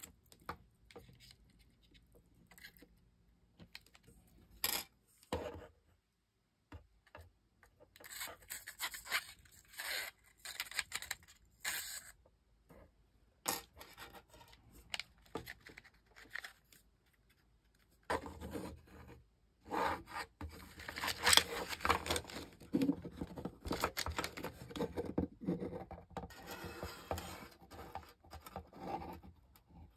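Bamboo drinking straws and wire-handled bristle cleaning brushes being handled, giving irregular scraping and rubbing with light clicks and knocks. The sounds are busiest in the later part.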